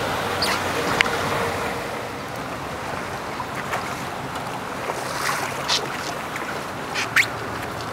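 Wind buffeting the microphone and water washing around a small boat's hull, with a few brief sharp ticks, the loudest near the end.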